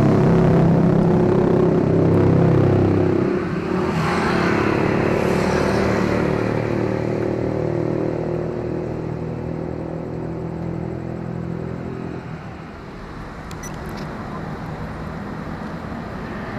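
A motor vehicle's engine running close by, loudest for the first three seconds or so and then fading away over the next nine, over a background of road traffic.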